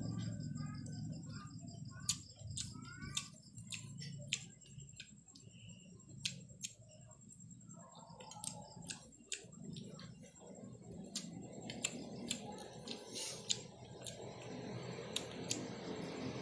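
Eating by hand: scattered short clicks and smacks of chewing, with fingers working rice in a plastic food container.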